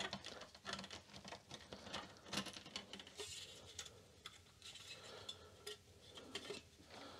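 Faint scattered clicks and light metallic taps as a floppy drive is handled: its small cover screws and sheet-metal cover being taken off and the screwdriver set down.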